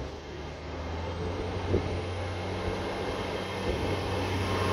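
A train running through the station, its engine a steady low drone that grows louder, with a faint high whine rising in pitch and then holding. A single sharp knock comes about two seconds in.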